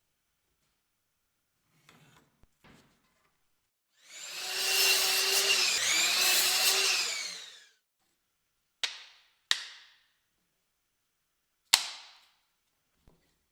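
A small power tool, drill-like, runs for about three and a half seconds, its pitch dipping and rising as it takes load. It is followed by three sharp knocks on wood.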